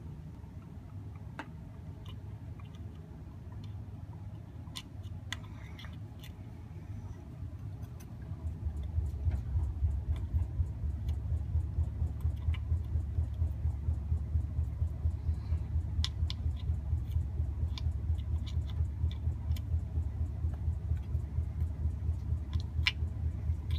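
Small metal weight cubes clicking now and then as they are picked up with tweezers and set into a wooden pinewood derby car's weight pocket. Under them runs a low rumble that grows louder about eight seconds in and then pulses quickly and evenly.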